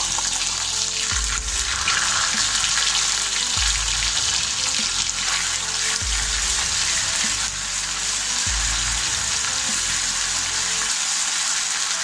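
Oil and ghee sizzling steadily in a kadai as ginger-garlic paste and chopped green chillies fry, stirred with a wooden spatula.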